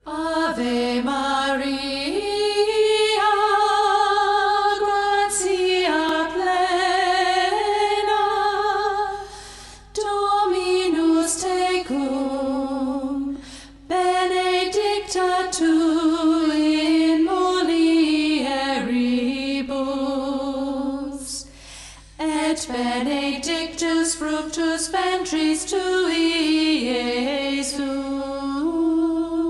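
A female voice singing a slow religious song by a church folk group, with vibrato, in long phrases broken by short pauses.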